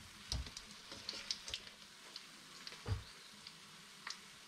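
Milk-powder dough balls deep-frying in hot oil with a steady sizzle, and a few light knocks of a utensil against the pan as they are turned.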